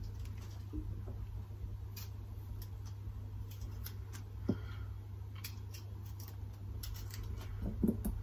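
Kitchen knife cutting tomatoes into quarters on a cutting board: faint soft cuts and clicks, with a sharper knock of the blade on the board about halfway through and a couple more near the end.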